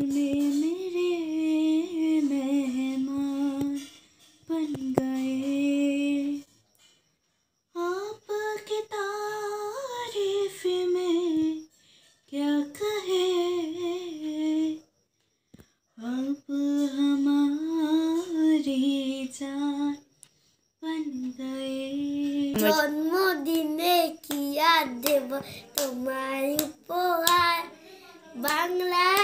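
Unaccompanied singing: a slow melody in long held phrases with short pauses between them. About three-quarters of the way through, a child's voice takes over, singing with repeated hand claps.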